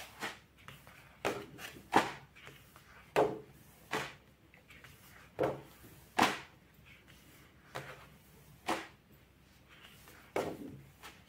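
Pages of a pad of decorative papers being turned one by one: about ten short flips, roughly a second apart.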